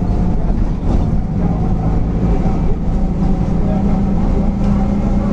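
Mercedes-Benz OF-1722M bus under way: the diesel engine runs with a growling driveshaft (cardan). It is a steady low drone that grows a little stronger about halfway through.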